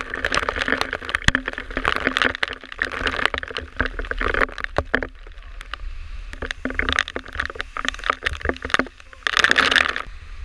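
Waterfall spray and water drops spattering on the camera as many sharp, irregular clicks, over the rush of the falling water, with wind buffeting the microphone. A louder surge of spray hits near the end.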